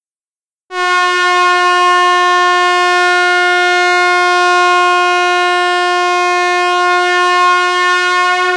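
Air horn sounding one long, loud blast at a single steady pitch, starting just under a second in.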